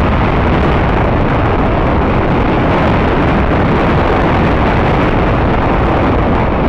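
Loud, steady rushing noise of wind buffeting the microphone, with a heavy low rumble.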